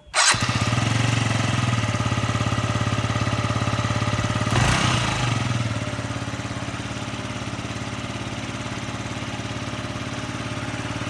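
Yamaha Jog ZR 50cc scooter engine, freshly repaired, starting up and running, with one brief rev about halfway through before it settles to a steady idle.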